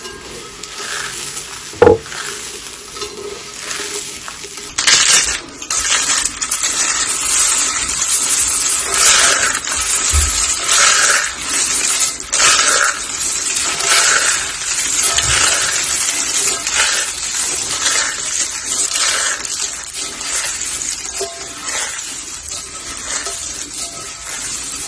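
Dry soap curls and soap roses being crushed, a dense crackling crunch that starts suddenly about five seconds in, after a quieter stretch with a single sharp click.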